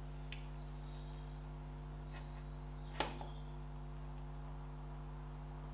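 A few light clicks and one sharper knock about three seconds in as a metal distributor is twisted and pushed into its housing on a tractor engine block; it is catching on the drive gear and will not drop fully home. A steady low electrical hum runs underneath.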